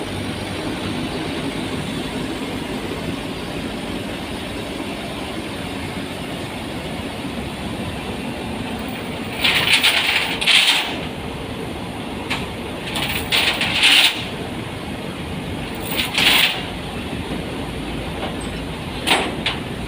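Zoomlion ZE135 excavator running steadily, with several short bursts of louder, higher-pitched mechanical noise from the second half on.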